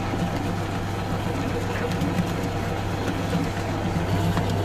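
Large commercial planetary mixer running steadily, its flat beater churning a thick mixture of butter, sugar and ghee: a constant motor hum with a low, pulsing churn.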